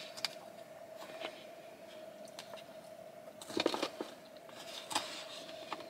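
A person eating a poke bowl close to the microphone: quiet chewing and mouth noises, louder clusters about three and a half seconds in and again near five seconds, with light scattered clicks of wooden chopsticks in a paper bowl. A faint steady hum runs underneath.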